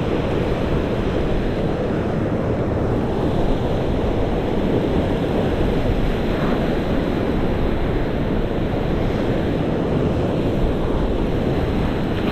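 Surf washing in over rocks in a steady rush, mixed with wind buffeting the microphone.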